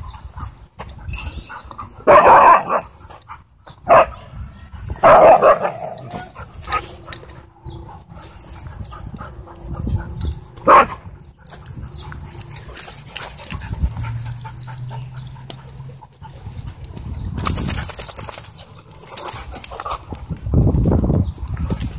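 Dogs barking during rough play: four loud barks spread through the first half, two of them longer than the others.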